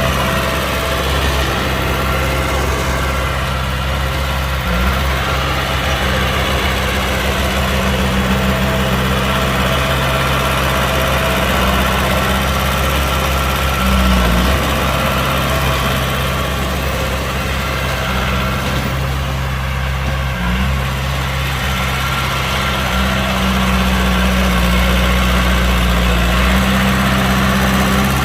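Heavy diesel engine of earthmoving equipment running steadily with a low rumble, its note shifting briefly a few times as the load changes.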